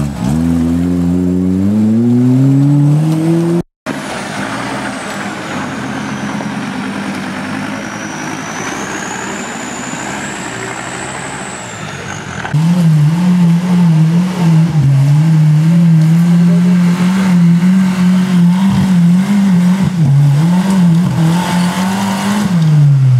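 Off-road 4x4 engines across several cuts. First an engine revs up hard and rising, then cuts off abruptly. Next comes a quieter stretch of engine and ground noise with a thin high whistle drifting in pitch, and then, about twelve seconds in, a loud Suzuki Samurai engine working under load on a climb, its pitch rising and falling before it drops away at the end.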